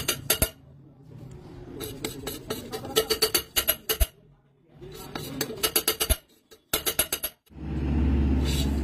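Rapid metallic tapping in short bursts of several quick strikes, with pauses between the bursts. Near the end a steady low hum starts.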